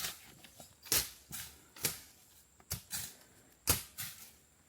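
A series of sharp cracking strikes, about one a second and some in quick pairs, each dying away fast.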